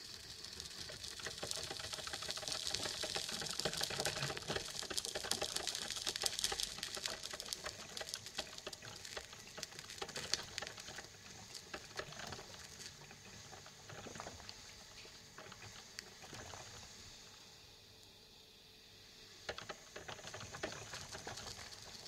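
Coffee maker brewing: hot water hissing and sputtering with many small crackles. The sound is loudest for the first several seconds, thins to scattered sputters, and swells again briefly near the end.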